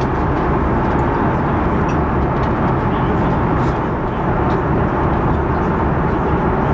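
Steady cabin noise of an Airbus A330-900neo airliner in flight: an even rush of airflow and engine noise, with a few faint small clicks over it.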